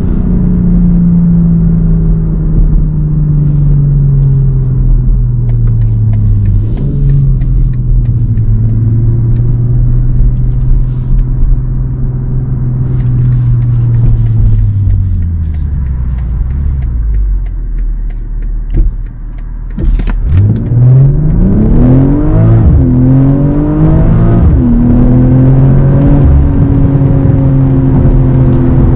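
BMW M340i xDrive's 3.0-litre turbocharged straight-six heard inside the cabin during a full-throttle launch. The engine pitch climbs steeply and drops back at each upshift, about every second and a half. Before the launch, a lower engine note falls and settles as the car slows.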